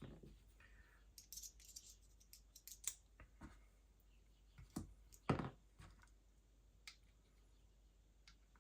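Scattered light clicks and taps of small parts and tools being handled on a workbench, a few a second at times, with a louder knock about five seconds in: spare springs and parts being put away.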